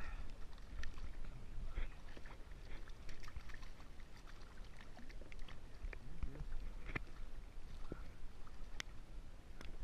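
Faint sloshing and small splashes of shallow stream water around a hand holding a small trout in it, with scattered light clicks and a low rumble.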